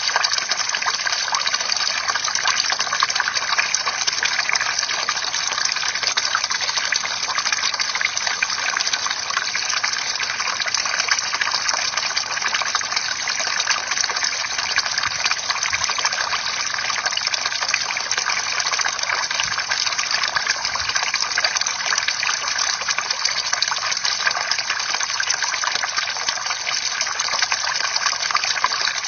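Bamboo water fountain: a steady, unbroken stream of water splashing and trickling.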